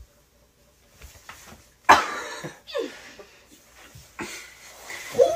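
Yelps and laughter from people horsing around: a sudden loud cry about two seconds in that slides down in pitch, then more cries and laughing near the end, as a woman is swung upside down over a man's shoulder.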